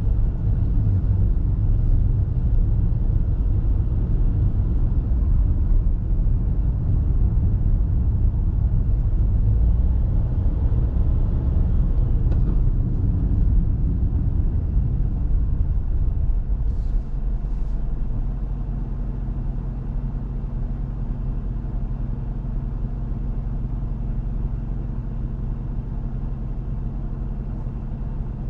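Car driving through town: a low, steady rumble of road and engine noise. About two-thirds of the way in it eases into a quieter, even engine hum.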